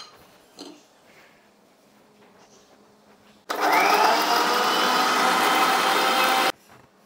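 Electric mixer grinder grinding tomatoes and garlic in its steel jar: the motor spins up with a rising whine, runs loud and steady for about three seconds, then cuts off suddenly. A sharp click at the start and a light knock just after.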